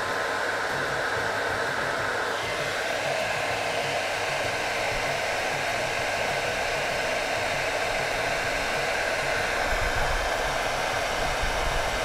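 Philips BHD006 1600-watt hair dryer running steadily, its fan blowing a continuous rush of air. About two seconds in, the rush turns slightly brighter and hissier.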